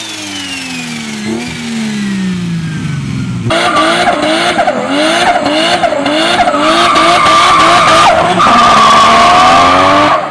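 A car engine winding down with a falling whine. About three and a half seconds in, a louder car takes over, its engine rising in short repeated surges. A steady high tire squeal follows from about six and a half seconds.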